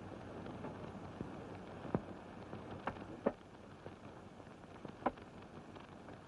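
Steady hiss of an old optical film soundtrack, broken by a few scattered sharp clicks and pops.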